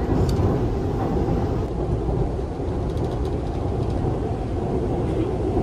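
Subway train running, a steady low rumble heard from inside the carriage.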